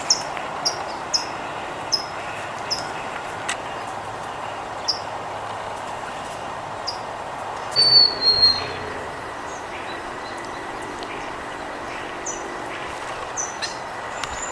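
Small songbirds giving short, sharp chip notes about every two-thirds of a second for the first few seconds, a louder short whistled call dropping slightly in pitch about eight seconds in, and a few more chips near the end, over steady background noise.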